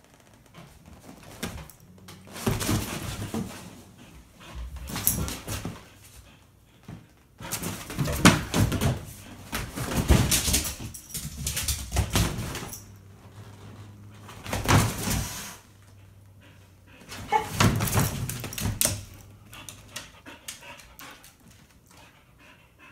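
Pitsky (pit bull–husky mix) dog whimpering in about five bursts, each a second to several seconds long, with quieter pauses between.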